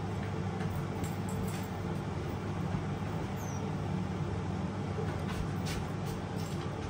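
Steady low hum of a running household appliance, with a few light taps and clicks as avocado slices are set down on a plate.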